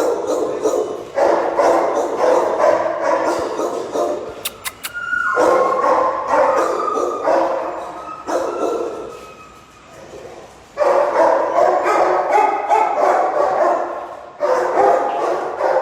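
Many dogs in shelter kennels barking at once, a dense overlapping chorus. A drawn-out whine stands out about a third of the way in. The barking dies down for a couple of seconds past the middle, then starts up in full again.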